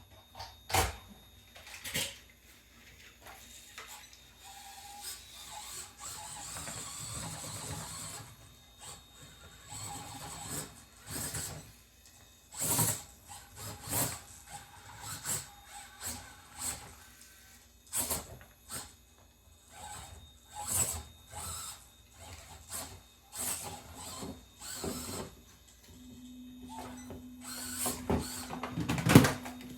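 Small-scale RC rock crawler driving over a plastic crag obstacle: irregular clicks and knocks of the tyres and chassis on the terrain, with the electric motor and gears whirring. A steady motor hum sets in near the end.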